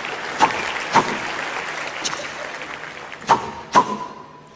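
Four sharp gunshot bangs, in two pairs about half a second apart, one pair near the start and one about three seconds in, each leaving a short ringing tone, the last ringing longest. Under them, a steady crowd murmur that fades toward the end.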